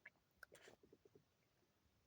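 Near silence with faint eating sounds: a few small clicks, a short rustle about half a second in, then a quick run of tiny ticks, as someone takes a spoonful of a soft-serve Blizzard.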